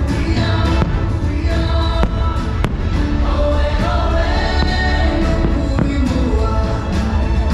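Loud fireworks-show soundtrack music with a choir singing, over a heavy low rumble, with a few sharp firework bangs through it.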